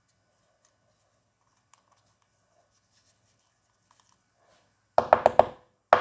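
A Fox Float CTD rear shock being tapped to knock a set screw or part out of its eyelet. After a few faint ticks, there is a quick run of about four sharp metallic taps about five seconds in, and another just at the end.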